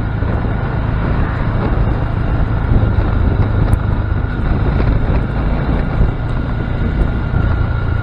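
A new-model Honda Grom's single-cylinder engine running steadily under way, mixed with wind rushing over the action camera's microphone.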